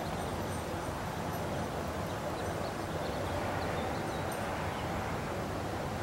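Steady outdoor background noise, an even low rumble, with a few faint short high chirps.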